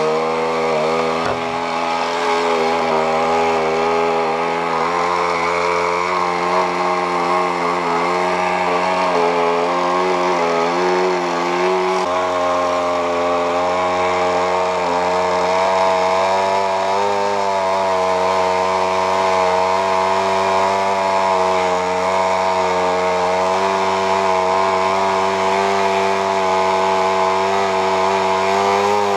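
KMD-2.5 compression-ignition (model diesel) two-stroke engine on a model aeroplane running steadily, its propeller spinning, with the pitch wavering slightly. This is its first run after starting from cold.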